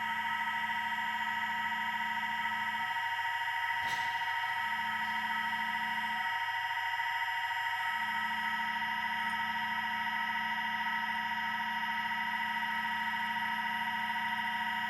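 High-speed CNC spindle running with a steady high-pitched whine of several fixed tones while a carbide end mill cuts Inconel 718, with one sharp click about four seconds in.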